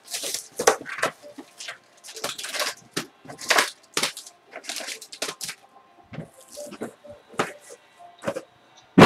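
Cellophane shrink-wrap crinkling and crackling as it is stripped off a sealed trading-card box, then the cardboard box being opened and handled, in irregular rustling bursts. A sharp knock at the very end.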